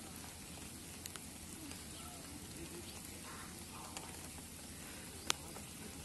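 Steady hiss of falling rain, with a few sharp ticks about a second in and a louder one near the end.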